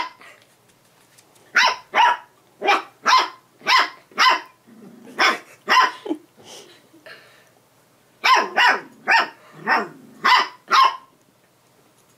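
A young puppy barking: short, sharp, high barks in quick runs, about six, then two, then about six more after a pause of a couple of seconds.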